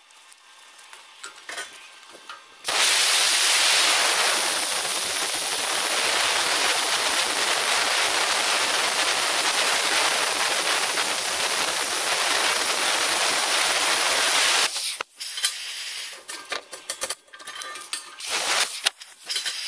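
Air plasma cutter cutting through steel plate: a loud, steady hiss that starts abruptly about three seconds in and cuts off sharply about twelve seconds later.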